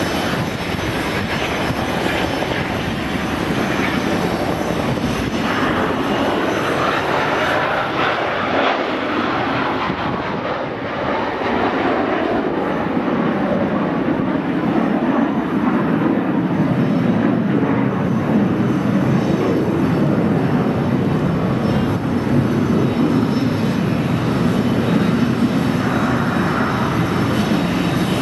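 CH-47J Chinook tandem-rotor helicopter running, its twin turboshaft engines and rotors making a loud, continuous noise. The low end grows stronger in the second half.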